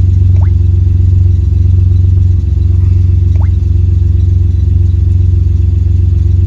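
Car engine idling, heard from inside the cabin: a loud, steady low drone, with a faint short rising chirp about every three seconds.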